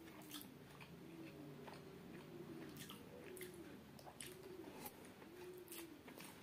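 Faint eating sounds: chewing and fingers squeezing and mixing biryani rice on a plate, heard as scattered soft wet clicks, over a faint low wavering hum.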